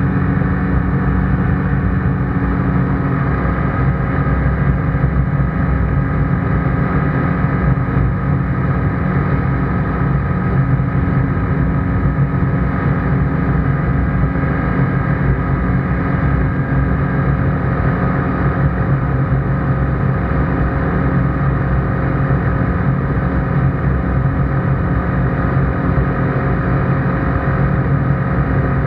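ICP Bingo ultralight's engine and propeller droning steadily in flight, heard inside the cockpit.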